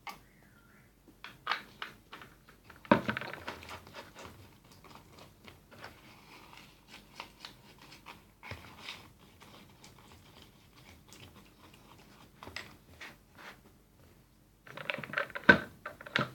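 Scattered clicks, taps and crinkling from handling the slime ingredients and tools: a plastic spoon, bowl and containers of baking soda and contact-lens drops being picked up and opened. There is a sharp knock about three seconds in, and a busier patch of clicks ending in the loudest knock near the end.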